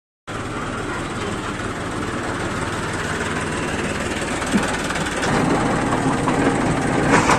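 An engine running steadily, getting a little louder about five seconds in.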